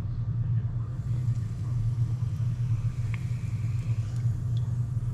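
Battered bluegill being lowered into the hot oil of an electric deep fryer as a test piece, a faint sizzle starting about a second in, over a steady low hum that is the loudest sound.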